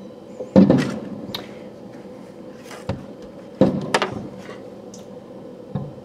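Aerial firework shells bursting. Two loud booms, about half a second in and about three and a half seconds in, each trail off. Fainter pops and crackles come between them.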